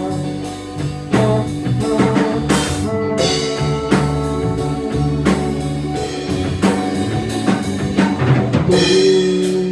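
Instrumental passage of a rock song with no singing: a drum kit keeps a steady beat of kick, snare and cymbals over sustained bass and guitar notes.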